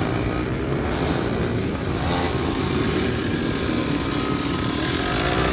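Motorcycle engines running steadily.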